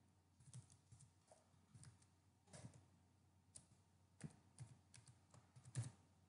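Faint, unhurried keystrokes on a computer keyboard: about a dozen separate clicks at uneven spacing as a word is typed, the loudest near the end.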